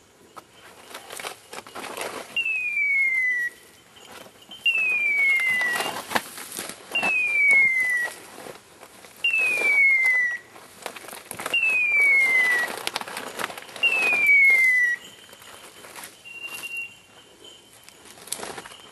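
Electronic beeper collar on a hunting dog sounding a falling, whistle-like tone about a second long, six times at roughly two-second intervals, over the rustle of brush and footsteps.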